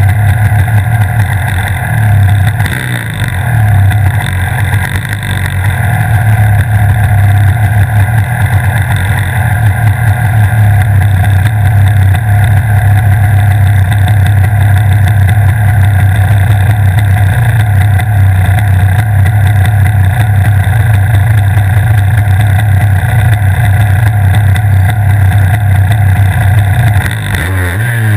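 Two-stroke superkart engine idling loud and steady, close to the microphone, while the kart stands still. Near the end the note dips and an engine is revved, its pitch sweeping up and down.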